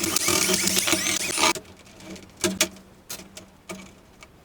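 A screw being worked out of the TV's rear panel with a screwdriver: a continuous squeaking, grinding run with a steady high whine that stops about a second and a half in, then a few separate light clicks of the tool and screw. The screw is stuck, next to one already broken.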